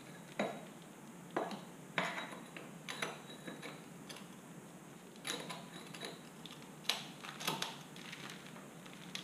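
Irregular metallic clinks and knocks of a wrench being worked against a motorcycle engine while the oil filter is taken off, each with a short ring.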